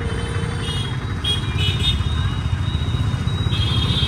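Busy street traffic: motorcycle and car engines running under a steady low rumble, with short high-pitched tones that come and go, most strongly near the end.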